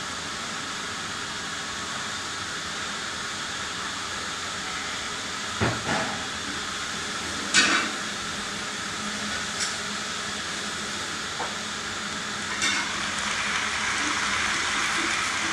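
Steady hiss of badminton hall ambience, with a few sharp knocks spread a second or two apart and the noise swelling slightly near the end.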